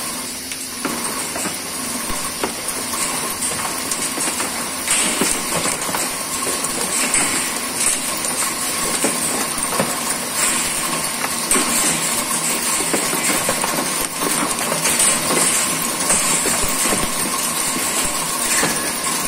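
A Correa Norma MGT milling-turning machine heavy-turning a large CK45 steel ring, the tool taking an 8 mm deep cut at 0.4 mm per revolution. Steady hissing cutting noise with a high ring and a faint steady tone, plus scattered small ticks as chips fly off.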